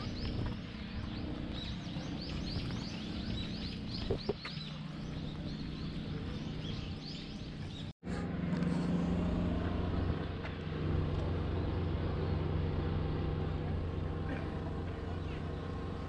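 Small birds chirping again and again, many short high calls over a low outdoor rumble. After a sudden cut about halfway through, a vehicle engine runs with a steady low hum.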